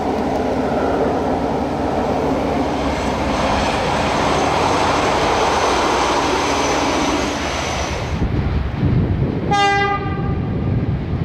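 Silver Fern railcar passing on the rails, its diesel engine and wheels growing louder midway, with a steady high whine on top. Then the low rumble of Mitsubishi-built Dj class diesel-electric locomotives, and a short blast of a locomotive horn about two-thirds of the way through.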